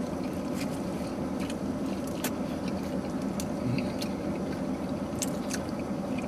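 Open-mouthed chewing of a meatball sub, with wet smacks and lip clicks scattered through. Under it, a steady low hum fills the car's cabin.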